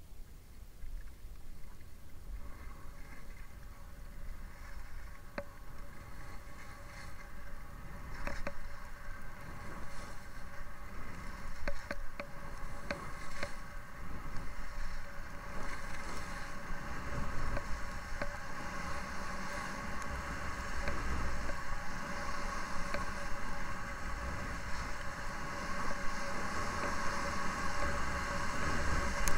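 Skis running downhill on a groomed piste with wind on the microphone: a steady low rumble and a buzzing hiss that grows louder from about halfway through, with a few scattered clicks.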